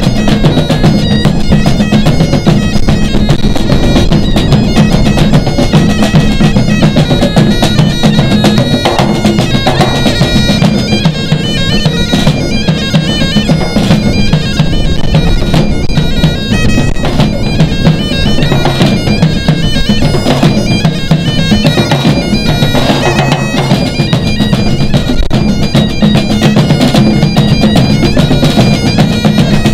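Great Highland bagpipe playing a tune over its steady drones, with a band of drums beating along: big rope-tensioned bass drums, a red field drum, a snare and a pair of congas.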